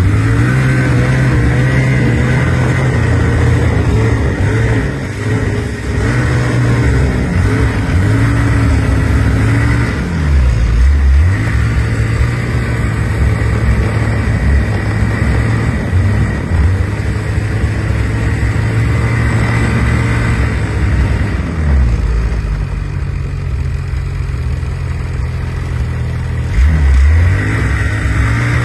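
Snowmobile engine running under throttle, its pitch rising and falling as it revs, with brief drops in revs about a third of the way in, past two-thirds, and near the end.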